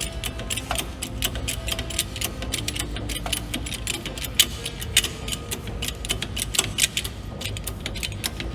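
Rapid, irregular metallic clicking and clinking from a vehicle jack and jack stand as the axle is raised and the stand is set under it, over a low rumble.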